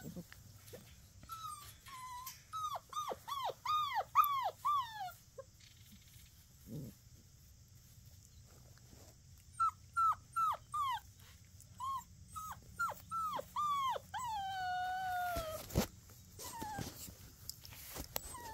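Puppies whining: strings of short, high whines that each drop in pitch, coming in two runs with a pause of about four seconds between them. The last whine is drawn out and slides down.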